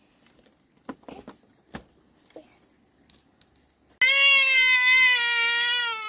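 A toddler bursts into a loud, long crying wail about four seconds in, its pitch sinking slightly as it goes on. Before it there are only a few soft knocks.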